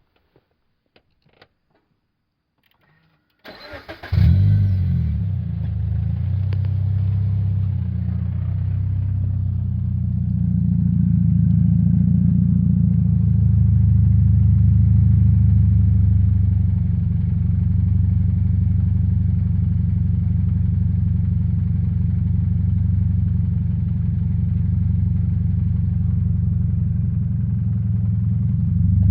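Toyota 86 (ZN6) 2.0-litre flat-four boxer engine starting about three and a half seconds in, after a few faint clicks, then idling steadily through a BE FREEE straight-pipe exhaust with its silencer insert fitted. The idle is deep and gets a little louder about ten seconds in.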